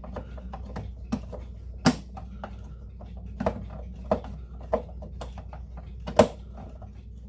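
Irregular small clicks and knocks of a screwdriver and screws being worked into a wall clock's backboard, with two sharper clicks about two seconds in and near the end, over a low steady hum.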